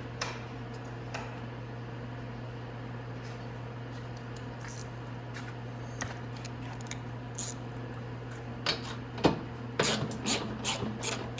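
Metal clicks and clinks from a socket wrench working a 12 mm bolt out of a motorcycle's frame: a few faint clicks at first, then a quick, irregular run of sharp clicks in the last few seconds. A steady low hum sits underneath.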